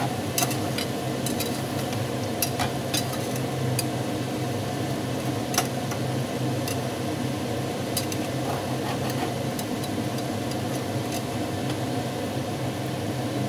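Metal spatula stirring and scraping food in an enamel pot, with scattered sharp clinks against the pot, over a steady low hum.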